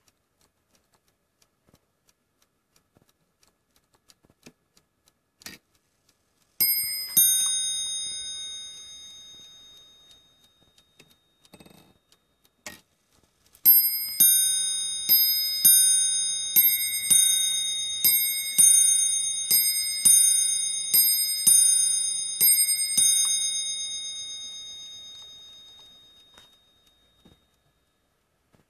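Brass bell of an oak bracket clock's movement struck by its hammers: a few faint mechanism clicks, then two quick strikes, then after a pause a long even run of strikes at somewhat under two a second, each ringing on and overlapping the next, the last dying away slowly.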